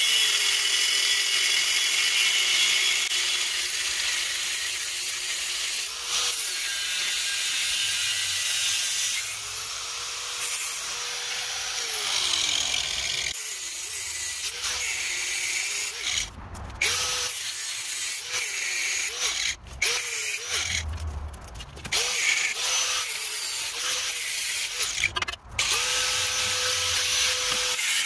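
A handheld power tool runs under load with loud high-pitched noise. Its motor pitch sags and recovers, and in the second half it runs in a series of short bursts.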